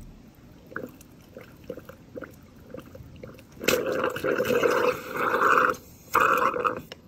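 Bottoms Up draft beer dispenser valve bleeding off the line while its plunger head is held down: after a few faint ticks, pressure and leftover liquid begin sputtering out loudly about halfway in, with a short break near the end.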